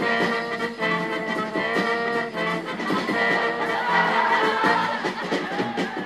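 Circus band music in a swing style, with many instruments playing together.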